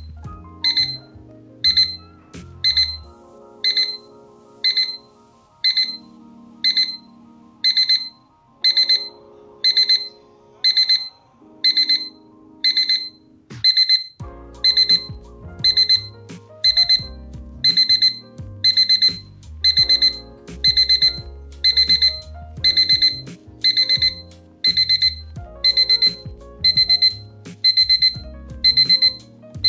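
IKEA Plugget digital alarm clock sounding its alarm: really loud, high-pitched electronic beeping in quick bursts about once a second, each burst growing longer as the alarm goes on.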